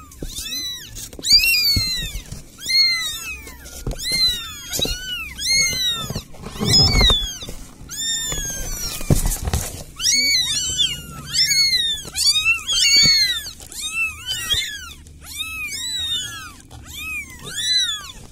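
Several very young kittens mewing for help without a break, with shrill, high-pitched cries. The cries come about two a second, each rising and falling in pitch, often overlapping.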